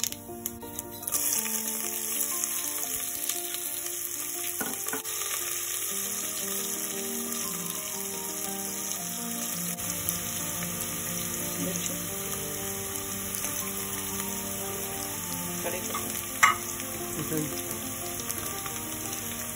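Hot oil sizzling loudly in a stainless steel pan as mustard seeds, urad dal and chopped onion fry for a tempering. The sizzle jumps up about a second in and then stays steady. There is one sharp knock near the end.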